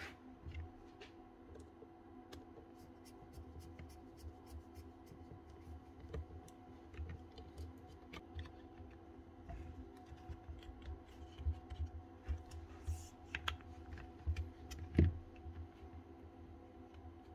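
Irregular small clicks and taps of plastic and metal as hands work on a Bosch corded drill's handle, switch and terminals, with a screwdriver tightening the new lead's wires, over a faint steady hum.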